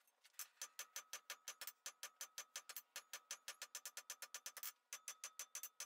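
Hand hammer striking a hot square steel bar on an anvil in quick, even, light blows, about seven a second, each with a bright metallic ring. The blows pause briefly near the end, then resume.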